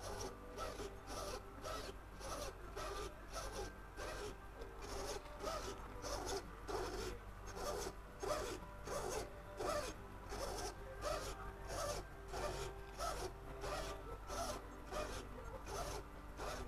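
RC crawler's steering servo whirring as it swings the front wheels back and forth, in short repeated bursts about two a second.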